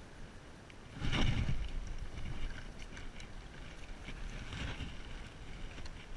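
Rustling and rubbing of clothing against a chest-mounted camera as the angler moves and picks up his spinning rod, with a heavy thump about a second in and another shortly before five seconds.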